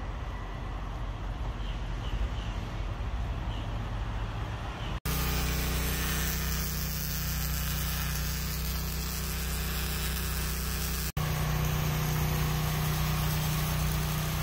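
A low steady rumble, then after an abrupt cut an arc welder's steady crackling hiss as a bead is laid at the flange of a replacement truck axle spindle. After a second abrupt cut there is a steady low engine hum.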